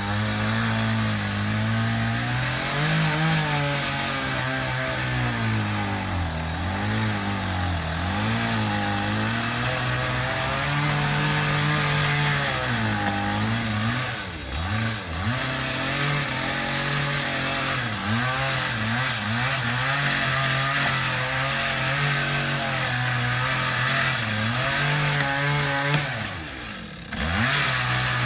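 Echo 8000 two-stroke chainsaw running under load during a felling cut, its engine pitch wavering and sagging sharply as the chain bogs in the wood a few times, with a brief drop in level near the end.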